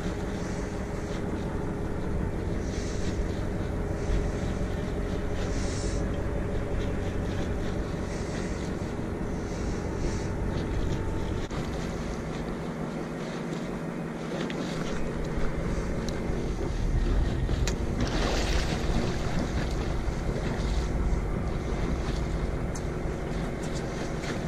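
Steady hum of a small fishing boat's engine running at idle. Wind rumbles on the microphone, easing off for a few seconds about halfway through.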